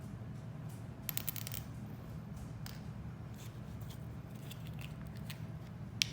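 A quick run of small sharp clicks about a second in, then scattered light ticks and one sharper click near the end, over a steady low hum.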